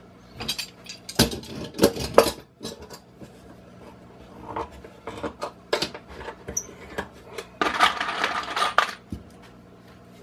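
Hand tools and hardware being handled on a wooden frame: a run of sharp metallic clinks and knocks against wood, then a rubbing scrape about eight seconds in.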